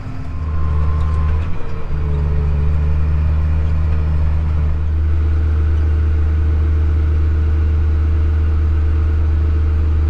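Tractor engine running steadily, heard from inside the cab, with a low, even drone and a brief dip about one and a half seconds in.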